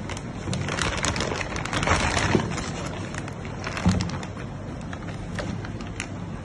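Clear plastic bag crinkling and rustling as a heavy hydraulic valve is pulled out of it, busiest in the first two and a half seconds. There is a dull knock just before four seconds in.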